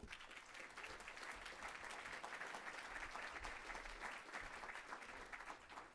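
Audience applauding: a dense patter of many hands clapping that begins at once and dies away near the end.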